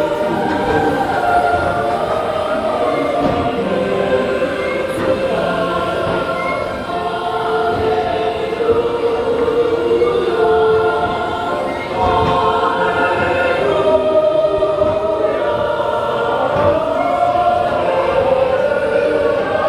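A choir singing long held notes over music, part of a dark ride's soundtrack.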